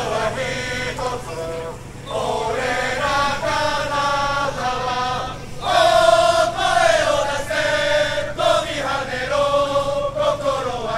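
Football supporters chanting a song together, many voices in unison on long held notes. The chant comes in phrases with brief breaks, and is loudest about halfway through.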